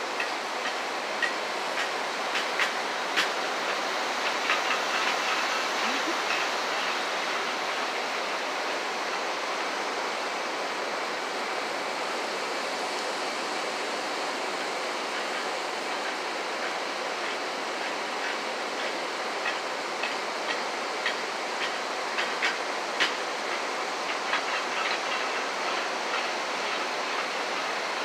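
Steady industrial machinery noise, with scattered sharp metallic clanks and clicks that come in clusters during the first few seconds and again past the middle.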